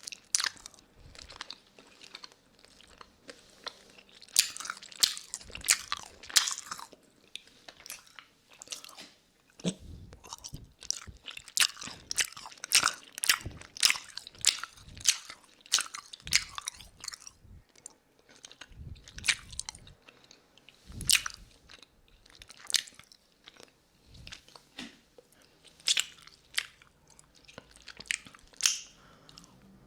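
Close-up mouth sounds of a lollipop being sucked and licked: many sharp wet clicks and smacks, some of them crunchy, coming thick and fast.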